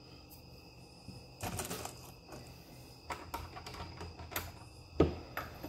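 Scattered clicks and clacks of brass cartridge cases being handled and a single-stage reloading press being worked by hand, with a sharper knock about five seconds in.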